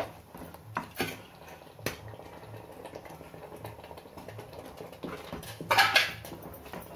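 A metal spoon clinking and scraping against an aluminium pot while stirring thick chana dal and coconut halwa, with a few sharp knocks in the first two seconds and a louder burst of scraping and stirring about six seconds in as ground chana dal is mixed in.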